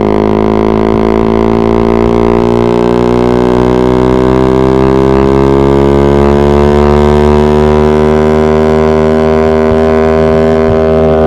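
Suzuki GSX-R150's single-cylinder engine pulling hard at high revs, its pitch climbing slowly and steadily as the bike gains speed in a top-speed run.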